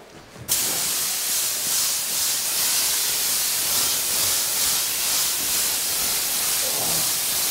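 Compressed-air paint spray gun spraying without a break: a steady hiss that starts suddenly about half a second in.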